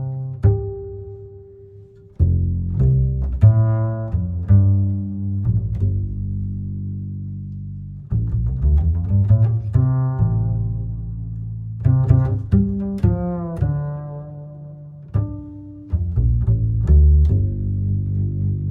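Background music of low, plucked string notes in short phrases, each note starting sharply and fading away.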